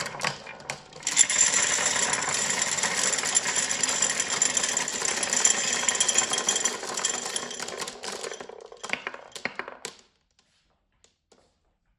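Many marbles rolling and clattering down a marble run track in a dense rattle of clicks, thinning to a few scattered clicks before stopping about ten seconds in.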